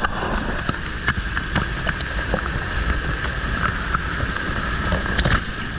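Creek water pouring and churning right against the microphone: a loud, steady rush with a low rumble and a few sharp clicks.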